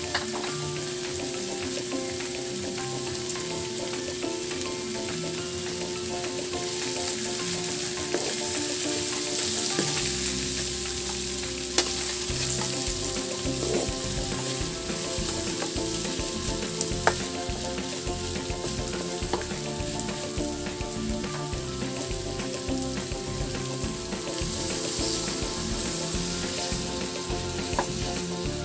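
Whole shrimp and minced garlic sizzling steadily in oil in a nonstick wok while a wooden spatula stirs them, with a couple of sharp clacks along the way.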